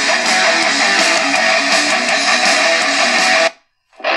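Realistic DX-380 portable radio playing guitar music through its built-in speaker, received on 92.9 FM from a low-power transmitter. The music cuts out for a moment near the end, then resumes.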